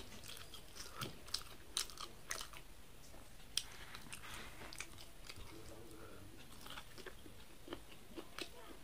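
Corn on the cob being bitten and chewed close to the microphone: sharp crunches and clicks from the kernels, coming quickly over the first few seconds and more sparsely after.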